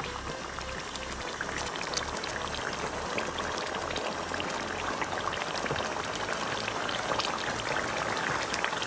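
Tomato and oil sauce with chicken pieces bubbling and sizzling hard in a pan over medium-high heat, a dense steady crackle of tiny pops that grows slightly denser, as a spoon is worked through it.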